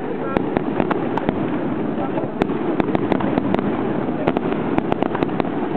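Aerial fireworks display: many sharp cracks and bangs from bursting shells in quick, irregular succession, over a continuous rumbling background.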